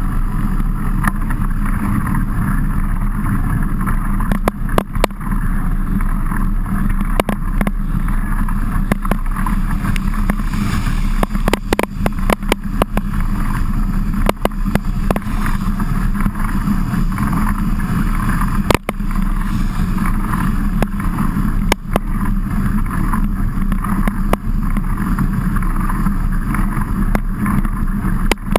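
Steady rumbling noise of a mountain bike being ridden through heavy rain, as picked up inside a wet action-camera housing mounted on the bike, with frequent sharp ticks of water and grit striking the housing.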